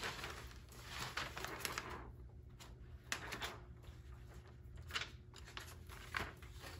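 Rustling and crinkling of a clear plastic laminating pouch being handled as a printed sheet is slipped into it, with a few brief light clicks and taps.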